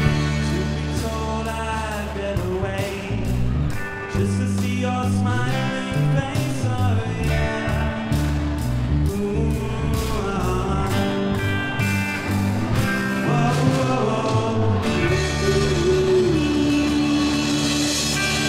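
Live rock band playing: drum kit, electric bass, electric guitar and acoustic guitar together at a steady loud level. Near the end the cymbals ring more heavily.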